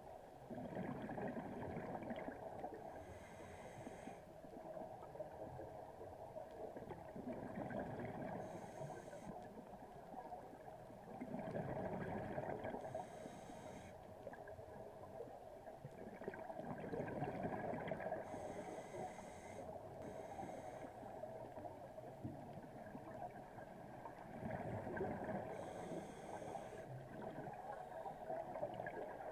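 Scuba diver breathing through a regulator, recorded underwater: about five breaths, one every five to six seconds, each a gush of exhaled bubbles with a brief hiss at its end.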